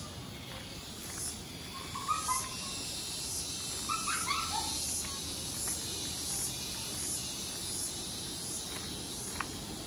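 Footsteps crunching steadily on a gravel path under a constant high insect drone. A few short animal calls come about two seconds in and again about four seconds in.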